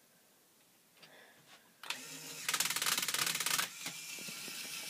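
Lego Technic Power Functions motor switching on about two seconds in and running its gear train, with a loud rapid rattling of plastic gears for about a second before settling into a steady whirring hum.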